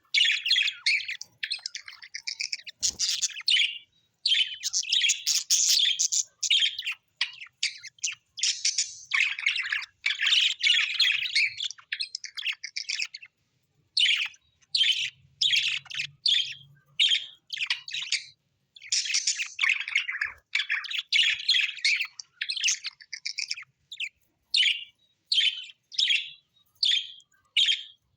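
Small birds chirping and warbling in rapid, high-pitched chattering phrases separated by short pauses, with a clear break about 13 seconds in.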